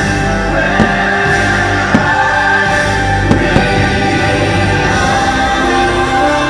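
The fireworks show's soundtrack: music with a choir singing sustained notes, with several firework bursts banging over it at irregular intervals.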